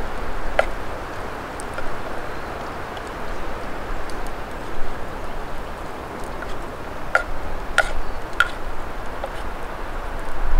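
Steady outdoor hiss with a few short sharp clicks: one near the start, then three more about half a second apart some seven to eight and a half seconds in.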